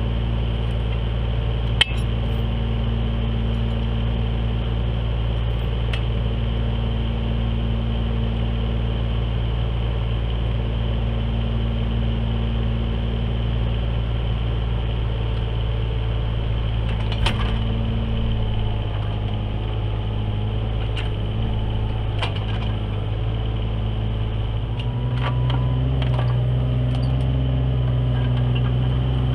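Kubota KX018 mini excavator's three-cylinder diesel engine running steadily, with occasional sharp knocks. About 25 seconds in, the engine speed steps up and it gets louder.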